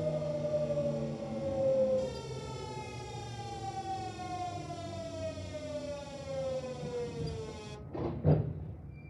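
The VVVF inverter of a Kintetsu 1026-series electric train whines during regenerative braking, a stack of tones falling slowly in pitch with a step change about two seconds in. Mixed into it is the hoarse, groaning noise of this set's inverter, an abnormal sound the uploader takes for deterioration. The whine cuts off abruptly as the train comes to a halt, followed by two short thuds, the second the loudest.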